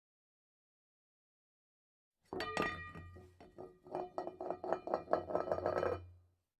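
Total silence, then a few seconds in, music made of quick struck or plucked notes over a low hum, about four seconds long and stopping abruptly before the end.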